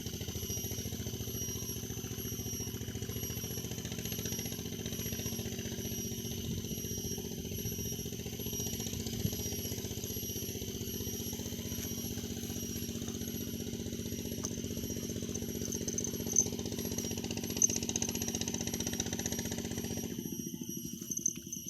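A small engine runs steadily nearby and cuts out or fades away about twenty seconds in. A steady, pulsing high insect buzz continues throughout.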